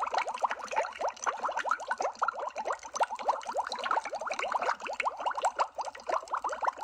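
Underwater bubble sound effect: a dense, steady stream of quick bubbling blips, many each second.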